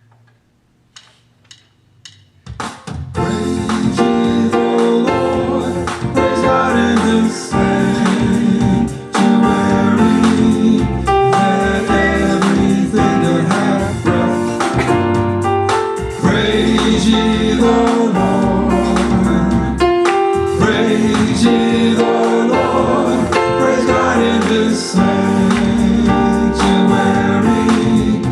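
Gospel praise-and-worship music starting up after a few soft clicks: a full band with keyboard and voices singing, running at a steady level once it comes in about two and a half seconds in.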